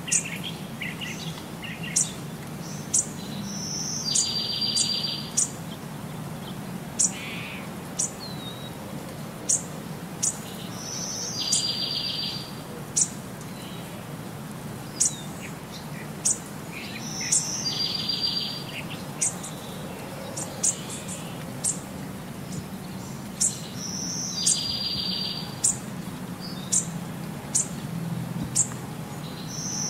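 Birds chirping: sharp high chirps about once a second and a buzzy trill lasting about a second every six to seven seconds, over a low steady hum. The same pattern repeats unchanged throughout.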